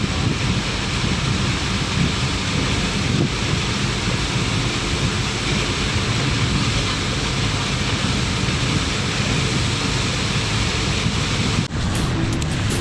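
Wind buffeting the microphone over a steady rush of sea surf. Near the end the sound cuts abruptly, and faint music begins.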